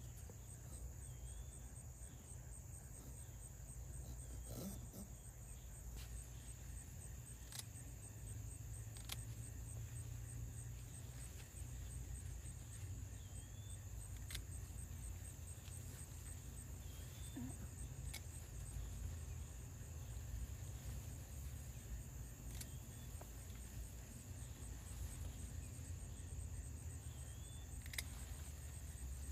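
Crickets chirring in a steady high trill over a low background rumble, with a few sharp clicks every few seconds from pruning shears snipping okra pods off the stalks.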